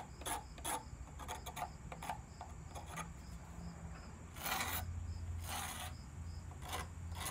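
Pocket knife blade scraping along the cut edge of an extruded plastic sheet panel, deburring it. A quick series of short scrapes comes first, then a few longer strokes about halfway through.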